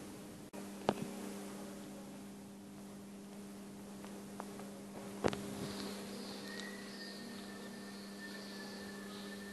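Low steady electrical hum that starts abruptly, with a couple of faint clicks and a thin high whine joining it near the end.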